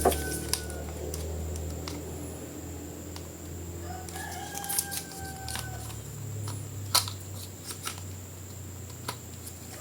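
A rooster crowing twice, long held calls, one trailing off about a second in and another starting around four seconds in. Scattered sharp clicks and taps and a low steady hum run under it.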